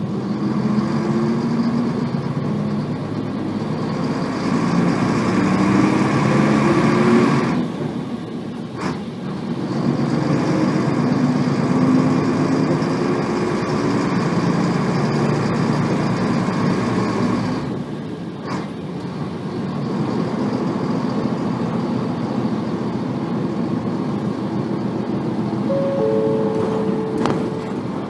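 A 1990 Nissan Diesel P-RM81G bus's FE6 six-cylinder diesel engine, heard from inside, accelerating through the gears. Its pitch climbs, drops at a gear change about seven seconds in and again about eighteen seconds in, then runs on more steadily. The bus is one marked for abnormal noise: high revving and gear whine.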